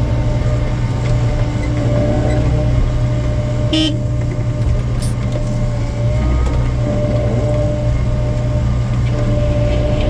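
Excavator's diesel engine running steadily under working load, with a steady whine over the drone and a sharp knock about four seconds in, during the loading of concrete waste.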